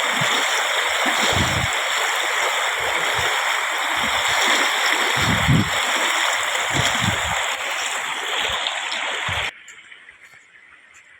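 Rushing floodwater after heavy rain, a loud steady rush, with wind buffeting the microphone in low thumps. It cuts off abruptly about nine and a half seconds in.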